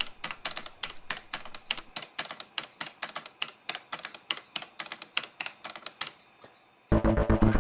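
Rapid clicking of desk-calculator keys being pressed in quick succession, about seven presses a second, stopping about six seconds in. Loud music starts near the end.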